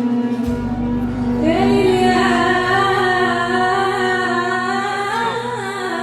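Music: a steady held low drone, with a voice entering about a second and a half in, singing a long, wavering, ornamented line.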